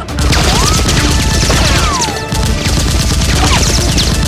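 Rapid bursts of gunfire sound effects over background music.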